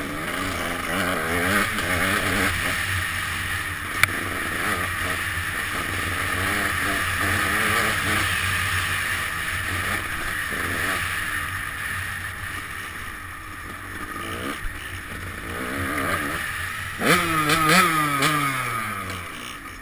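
Dirt bike engine heard from the rider's helmet, revving up and down again and again as the bike is ridden along a trail, with wind rushing over the microphone. About seventeen seconds in, a hard rise in revs drops away again.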